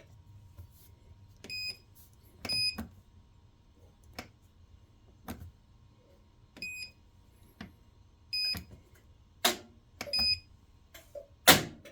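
Kenmore washing machine control panel giving five short electronic beeps spread over several seconds, amid sharp clicks and knocks, the loudest near the end, as the controls are worked on a washer that won't start.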